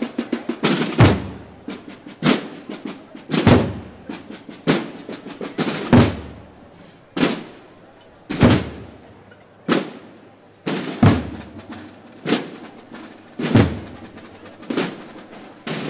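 Processional drums beating a slow, steady march cadence, one heavy stroke a little over every second, after a short flurry of quick strokes at the start.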